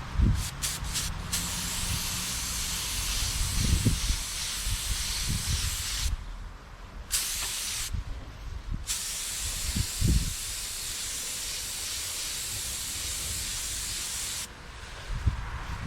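Paint spray gun hissing as coating is sprayed onto a car panel: a few quick spurts, then long steady passes that break off briefly twice and stop near the end. Wind buffets the microphone with low thumps.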